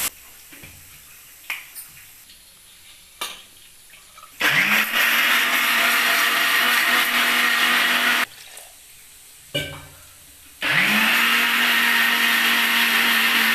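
Electric mixer grinder running in two bursts while grinding spices in its steel jar. Each time the motor spins up quickly and whirs steadily: first for about four seconds, then after a short pause with a few clicks of the jar being handled, again for about three seconds.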